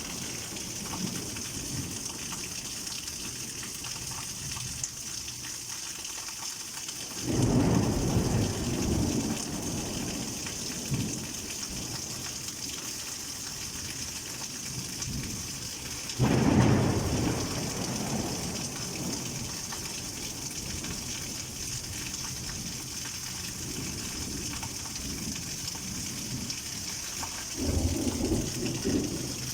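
Heavy rain falling steadily as a constant hiss, with three low rolls of thunder: one about seven seconds in, a louder, sharper one about sixteen seconds in, and a shorter one near the end.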